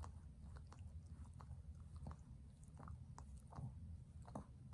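Shih Tzu grooming its paw with its mouth: faint, irregular wet clicks and smacks about two a second, over a low steady hum.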